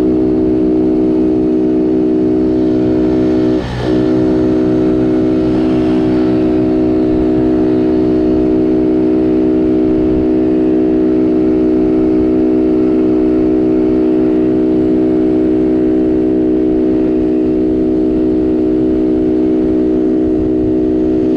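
Small engine running steadily close by, holding one unchanging pitch, with a brief dip in level about four seconds in.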